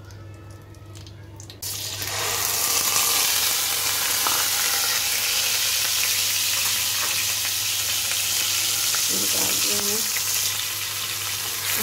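Chopped onions are tipped into hot oil with cumin seeds in a non-stick kadai, and a loud, steady sizzle starts suddenly nearly two seconds in. The sizzle keeps going as the onions are stirred with a wooden spatula.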